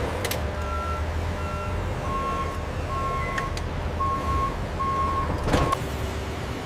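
Vehicle backup alarm beeping about once a second over a low engine rumble as a truck or forklift reverses. The beeps shift slightly lower in pitch after the first two, and a short knock sounds near the end.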